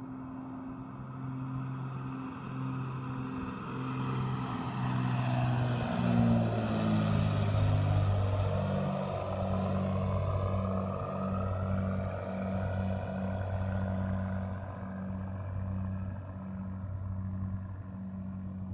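Grumman Widgeon twin-engine amphibian flying low past, its piston engines growing louder to a peak about six to eight seconds in. The engine note drops in pitch as it goes by, then holds lower and slowly fades as the plane flies off.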